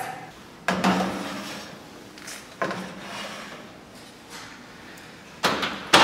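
Gas oven door and metal cake pans clunking: about four sharp clunks, each fading over about a second, as the oven is opened and shut around the pans.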